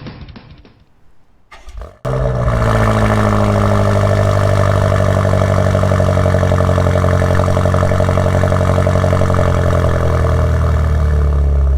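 BMW M8 Competition's twin-turbo V8 comes in suddenly about two seconds in and runs loud and steady, its pitch easing down slightly before holding level.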